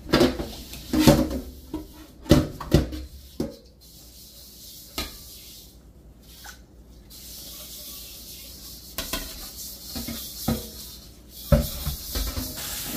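A stainless steel scrubbing pad scours the outside of a new metal wok in a sink, in uneven strokes with knocks of the pan, loudest in the first few seconds and again near the end. The scrubbing, with baking soda and vinegar, strips the factory preservative oil off the wok before seasoning.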